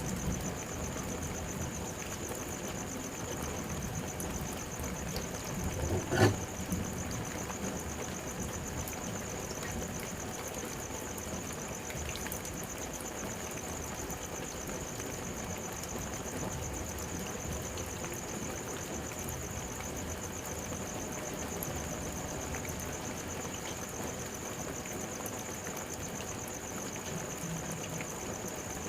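Light drizzle falling steadily, with crickets trilling in a continuous high, pulsing chorus. About six seconds in there is a single brief, louder thump.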